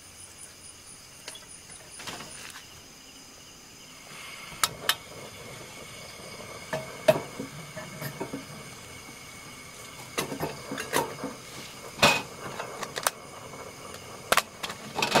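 Night insects, crickets among them, trilling steadily, with a fast pulsing chirp for the first couple of seconds. From about four seconds in come a dozen or so sharp clinks and knocks of cups and camp cookware being handled on a camp table.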